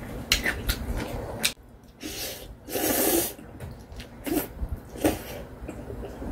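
A mouthful of instant ramyeon noodles slurped noisily about halfway through. Before it, a few light clicks of metal chopsticks against a glass bowl.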